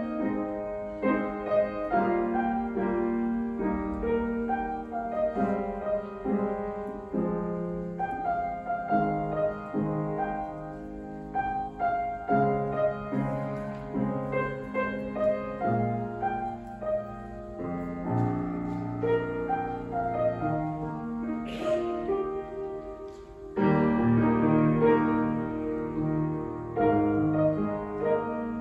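Slow piano music in held chords, growing louder and fuller about three-quarters of the way through.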